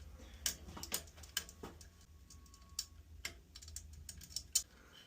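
Scattered light clicks and taps of hands working the wiring on a boiler's low water cutoff, connecting the wire to the probe, over a low steady hum. The sharpest click comes about four and a half seconds in.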